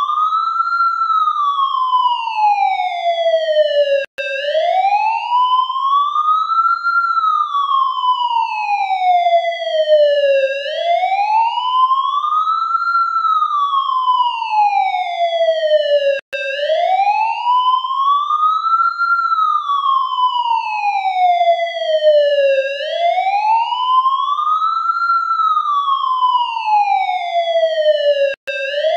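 Ambulance siren in a slow wail, its pitch rising and falling smoothly about once every six seconds. It cuts out for an instant three times, about twelve seconds apart.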